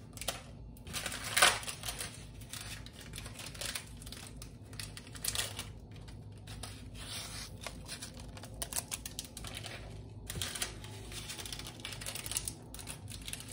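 Small plastic seasoning sachets being torn open and crinkled, their granules shaken out, in an irregular run of rustles and ticks with one sharper rip about a second and a half in.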